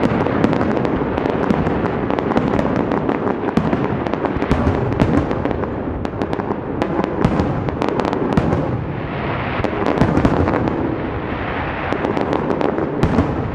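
Fireworks display: aerial shells bursting in quick succession over continuous crackling from many small reports, with thicker flurries of bangs in the middle and near the end.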